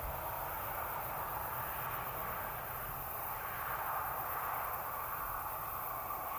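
Distant road traffic heard as a steady hiss across open country, growing slightly louder in the second half.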